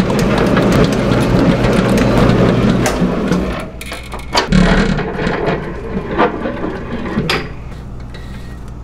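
A commercial dough mixer runs, its hook kneading pizza dough against the stainless-steel bowl. A steady motor hum drops away about three seconds in, leaving quieter knocks and thumps of dough and hook.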